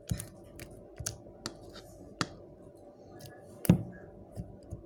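Slime toppings being poured out of a small plastic container: scattered light clicks and taps, with one sharper knock a little over halfway through.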